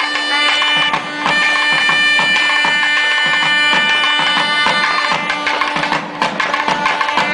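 Traditional Indian festival music: drums beating a steady rhythm under a held melody and a constant drone note.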